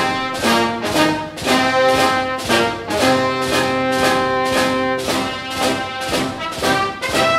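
Background music: held pitched notes over a steady beat of about two hits a second.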